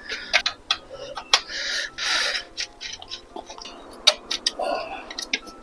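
Irregular metal clicks and clinks of hand tools working on a bicycle's rear fittings, with a couple of brief scraping sounds.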